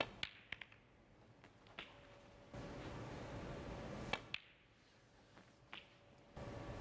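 Snooker cue and balls clicking: the cue tip striking the cue ball and the cue ball hitting object balls, several sharp clicks, some in quick pairs, over a quiet arena hush.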